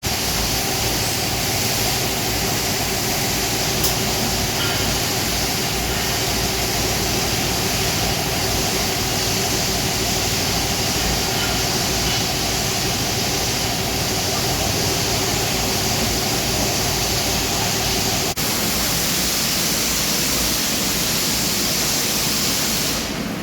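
Industrial wet floor scrubber running steadily: a constant machine hum under a strong hiss. About eighteen seconds in there is a brief break, and one tone of the hum drops out after it.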